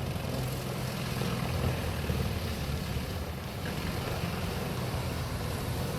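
Vermeer HG6800TX horizontal grinder running with a steady, low diesel drone and the even rush of material being ground.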